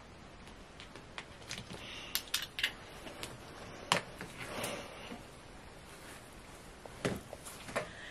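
Hands working sand slime and seashells in a plastic tray: scattered sharp clicks and soft squishing, busiest around the middle.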